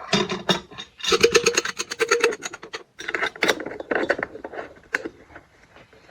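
Rapid rasping strokes of hand abrasive work on the metal of old rusty pliers, coming in bursts of a second or two with short pauses and tailing off near the end.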